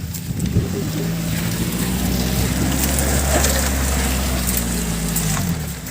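Suzuki Carry's small engine pulling at a steady note on a rough dirt road, easing off shortly before the end, with scattered clicks and knocks of the van bouncing over stones.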